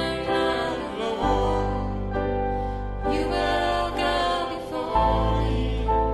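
Worship band playing a slow song, with long held chords over a sustained bass note that changes about a second in and again about five seconds in.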